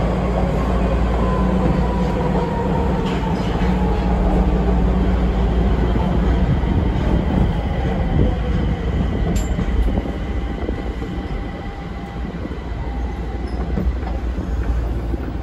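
Nagoya subway 5050-series train heard from inside the car, running and braking into a station: a steady rumble with a faint whine that slowly falls in pitch as it slows. The rumble drops to a quieter hum about ten seconds in as the train comes to a stop.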